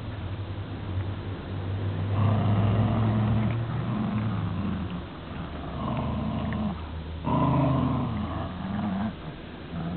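Lhasa Apsos growling in play while tugging on sticks: long growls in about four bouts, the first starting about two seconds in.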